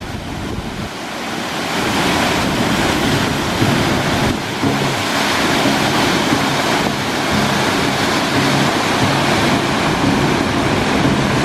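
Steady rushing noise, with low held tones coming in underneath about three and a half seconds in.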